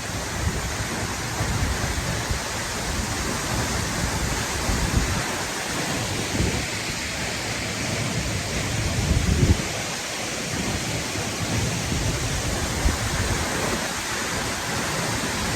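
Steady roar of a high waterfall crashing onto the rocks at its base, with uneven low rumbles of wind and spray buffeting the microphone.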